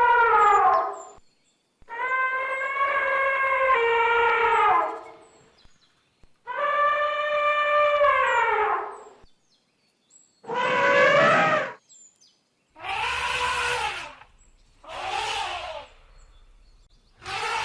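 Elephant trumpeting: a string of about six loud brassy calls, each one to three seconds long and sliding down in pitch at its end, with short silences between them.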